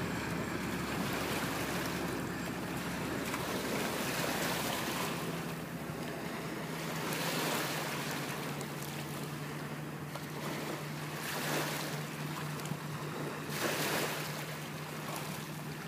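Small waves washing onto a pebbly beach, swelling and easing every few seconds, with wind buffeting the microphone. A steady low hum runs underneath.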